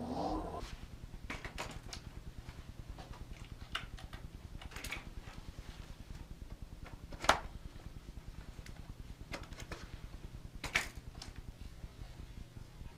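Handling noise from a camera clipped to a backpack strap: fine rustling and ticking as the wearer moves, with two sharp knocks in the second half.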